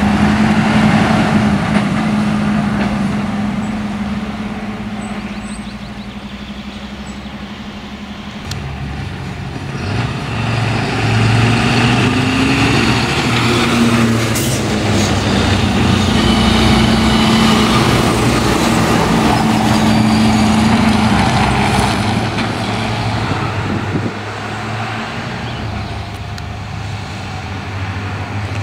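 Diesel engines of heavy emergency trucks (THW lorries and a fire engine) running at low speed as they drive past one after another. The engine sound eases off midway and grows louder again from about ten seconds in, as a truck passes close by.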